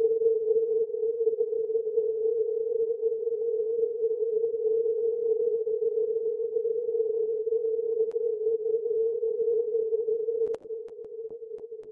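Flex-6500 software-defined radio receiving 40-metre CW through a 50 Hz filter with noise reduction switched off: steady, narrow, tone-like band noise pitched near 450 Hz. About ten and a half seconds in there is a click and the sound drops markedly in level.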